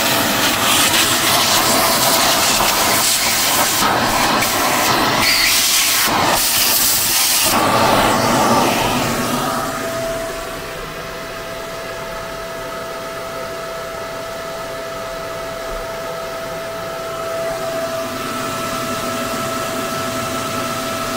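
Shop vacuum running and sucking sawdust out of freshly CNC-cut plywood: a loud rushing hiss over a steady motor whine. About ten seconds in the rush drops away and the vacuum runs on more quietly with its steady whine.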